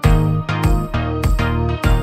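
Background music with a steady beat: a low hit about every 0.6 seconds under held, layered chords.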